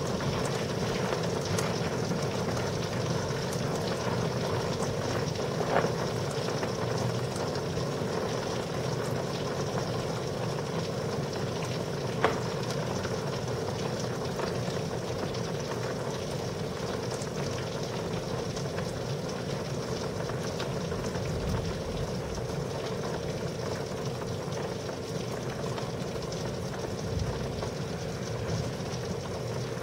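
Heavy thunderstorm rain falling steadily, a dense even hiss, with a couple of sharp taps in the first half and faint low rumbles later on.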